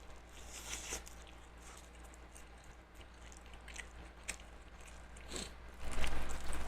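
Close-up mouth sounds of eating: chewing and biting food, with short wet clicks and smacks, getting louder and busier near the end.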